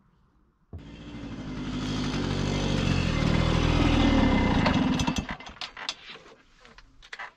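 Suzuki K90's single-cylinder two-stroke engine running and revving, the sound climbing steadily for about four seconds, then falling back sharply, with a few sharp clicks near the end.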